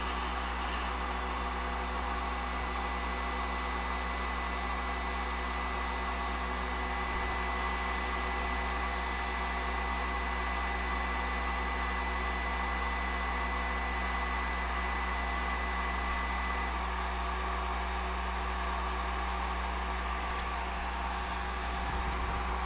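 Snapmaker 2.0 with its 10W laser module running a calibration job that burns marks on a sheet of paper: a steady fan-like hum. A thin high whine in it cuts out about three-quarters of the way through.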